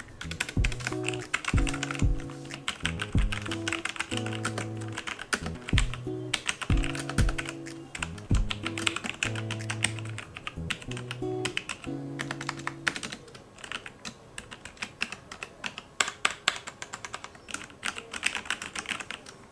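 Typing on a Logitech G413 mechanical keyboard with Romer-G switches: rapid, irregular keystroke clicks. Background music with steady low notes plays under the typing and stops about two-thirds of the way through.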